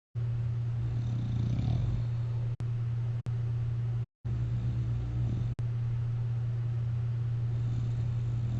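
A person wearing a CPAP mask snoring on their back, two snores about three and a half seconds apart over a steady low hum. The sound drops out briefly a few times, with small clicks.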